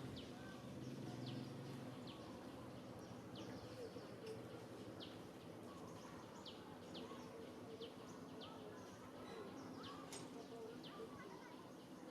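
Faint outdoor ambience with small birds giving short, high, downward chirps, irregularly, about one or two a second.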